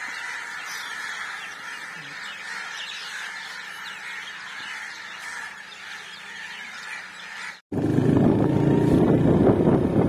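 A dense, steady chorus of birds calling. Near the end it cuts off abruptly into much louder wind rushing over the microphone and vehicle noise from a moving motorcycle.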